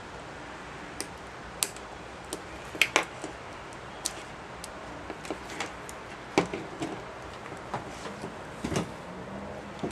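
Scattered light plastic clicks and taps, irregularly spaced, from a blue multi-pin wiring-harness connector being handled and worked open by hand, over a steady background hiss.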